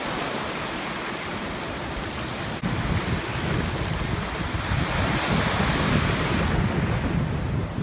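Ocean surf washing in small breaking waves, with wind buffeting the microphone. The wind rumble gets suddenly stronger about two and a half seconds in.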